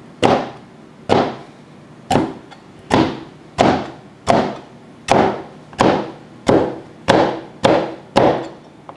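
Forge to Table steel cleaver chopping spiny dogfish into chunks, the blade striking through the flesh onto a plastic cutting board. About eleven sharp chops, one on its own and then a steady run of one every second or less, each with a short ringing tail.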